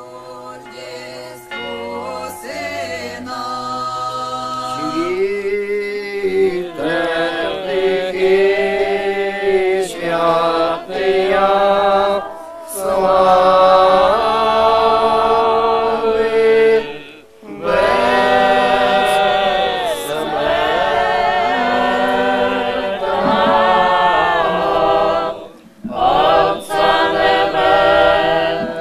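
A group of voices singing a cappella church chant, in long held phrases with a few short breaks between them.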